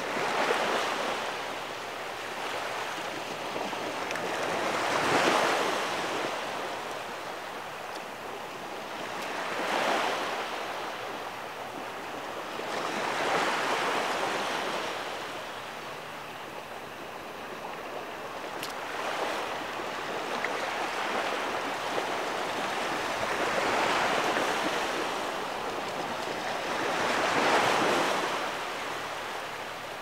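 Small waves breaking and washing up a sandy beach as the tide comes in, the surf swelling and fading every four to five seconds.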